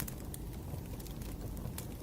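Wood fire burning: a steady low rumble of flames with a few small, sparse crackles.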